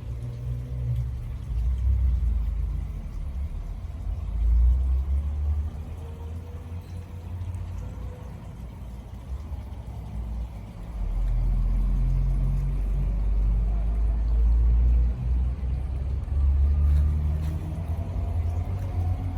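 A low, uneven rumble that swells and fades, loudest about a second in, around four seconds in, and again from about eleven seconds to near the end, with a faint tone drifting over it now and then.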